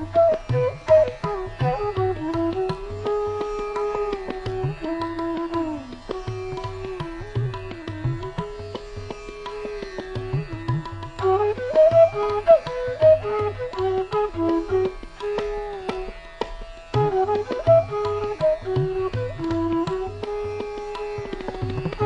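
Background instrumental music in an Indian classical style: a flute melody that slides between notes over a tabla rhythm.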